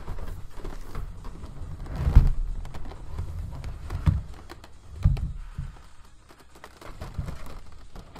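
A large cardboard box and its plastic inner tray being handled and slid apart: dull bumps about two, four and five seconds in, the first the loudest, with scuffing and light knocks of cardboard and plastic between.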